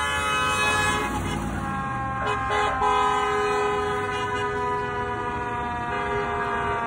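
Car horns honking from passing parade cars: several horns held down together in long, overlapping steady tones, one joining about two seconds in.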